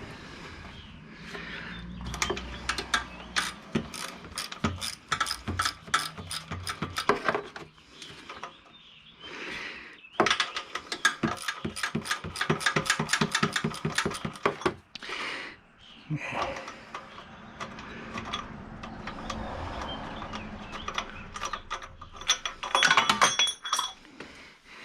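Ratchet wrench clicking in rapid, even runs of several seconds each, with brief hisses in between.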